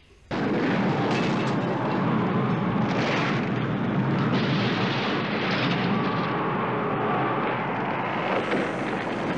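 Explosion blast: a dense, continuous rush of noise that starts abruptly and runs for about nine seconds before cutting off suddenly.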